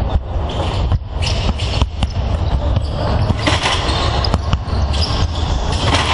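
Basketballs bouncing irregularly on a wooden hall floor, several at once, each bounce a sharp thud echoing in a large sports hall, over a steady low rumble.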